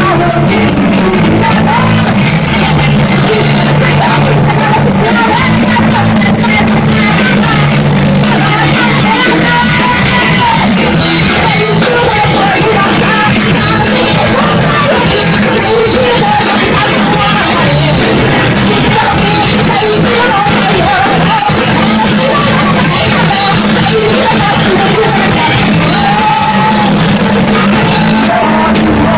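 Live rock band playing loud: electric guitar and drums with a singer singing and yelling into the microphone.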